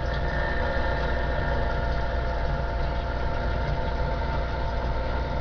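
DAK Mark 9 CB base station receiving between transmissions: a steady hum with a few held tones over an even hiss from its speaker.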